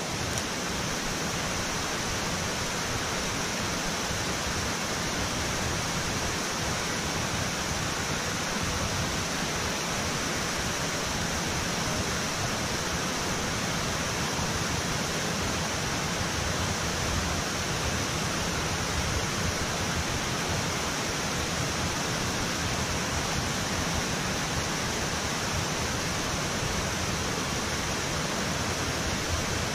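Steady rushing of water pouring through a dam's spillway gates into the river below.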